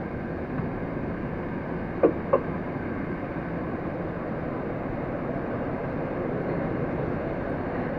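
Metro train running through a tunnel, heard from the driver's cab: a steady running noise of wheels on rails, with two short clicks about two seconds in.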